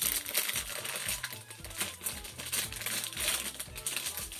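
Crinkling of the small foil-and-plastic bag of a Funko Mystery Minis figure as it is handled and opened, a run of quick crackles throughout, over quiet background music.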